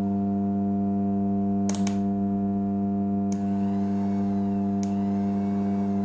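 Steady hum of a rewound microwave-oven transformer under heavy load while it powers a 12 V Denso DC motor running fast off about 18 V. A few sharp clicks come about two, three and five seconds in.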